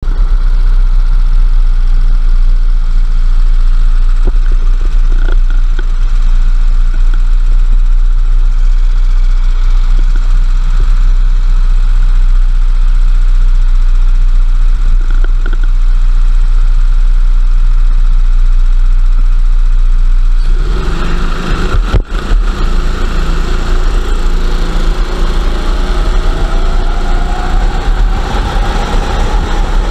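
A rental kart's engine idling on the starting grid, picked up onboard as a steady low drone with heavy vibration. About two-thirds of the way through it opens up to full throttle, the pitch climbing as the kart accelerates away at the race start.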